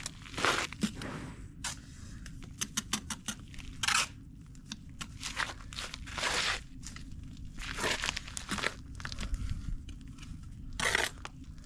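A bricklayer's trowel scraping and spreading mortar on brickwork: repeated short gritty scrapes, with a quick run of sharp taps about two to four seconds in. Crunching footsteps on gritty ground are also heard.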